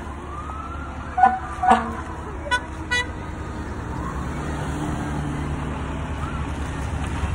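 Car horns tooting in short blasts from slow-passing cars: two toots about a second in, then two thinner, higher toots soon after. Under them is the steady running of passing vehicle engines, growing a little louder in the second half.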